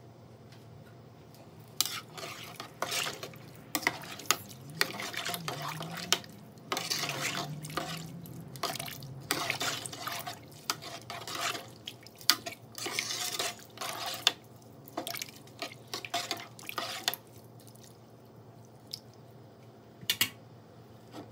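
A spoon stirring rice into broth in a large metal pot: liquid sloshing in irregular strokes with clinks of the spoon against the pot. It starts about two seconds in and stops a few seconds before the end, with a couple of single clicks afterward.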